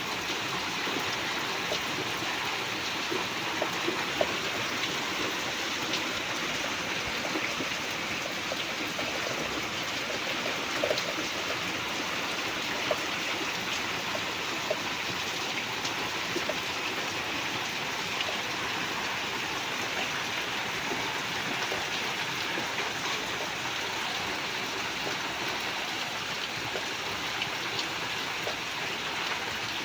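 Steady rain falling, an even hiss with a few louder drips here and there.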